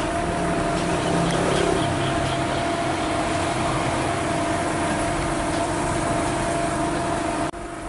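Diesel engine of a steel river cargo barge running steadily under power with a constant droning hum, as the barge manoeuvres off the landing, pushing clouds of exhaust smoke.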